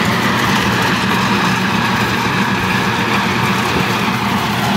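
Açaí pulping machine running steadily, grinding a batch of açaí fruit.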